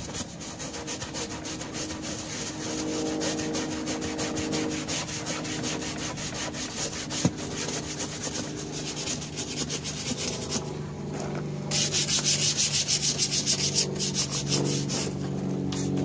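A stiff-bristled hand brush scrubbing stains off a golf cart's cream body panel in quick back-and-forth strokes. It pauses briefly about ten seconds in, then scrubs harder and louder.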